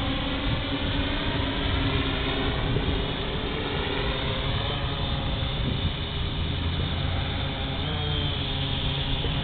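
Multicopter's electric motors and propellers buzzing steadily in flight, with several tones drifting in pitch as the motors change speed while it descends low over the ground.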